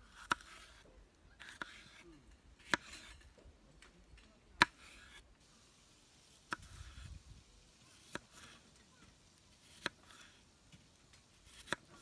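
Knife slicing through bell pepper and then onion on a wooden cutting board: about seven sharp taps of the blade meeting the board, roughly every two seconds, with faint crisp cutting sounds between.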